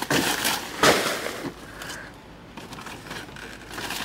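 Heavy plastic sacks of landscaping material crinkling and rustling as they are grabbed and tossed out of a car's hatch, with two sharp hits near the start, the louder one about a second in.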